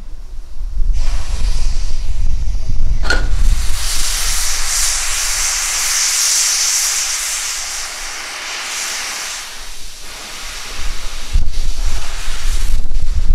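Steam hissing from the open cylinder drain cocks of a narrow-gauge 2-10-2T steam tank locomotive. The hiss sets in about a second in and fades out around ten seconds in, with a brief sharp squeak about three seconds in. A low rumble is heard at the start and again near the end.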